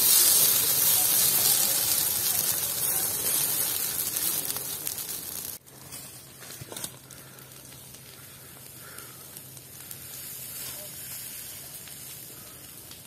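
Forest fire burning with a loud, steady hiss. About halfway through it cuts abruptly to a much quieter hiss with a faint low hum.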